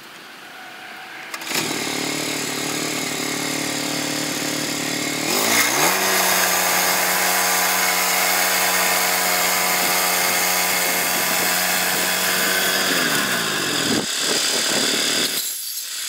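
Woodland Mills HM122 bandsaw mill's small gas engine starts about a second and a half in and idles. It is then throttled up to high, steady revs as the band blade cuts through a log, and after about seven seconds it is throttled down and stops near the end.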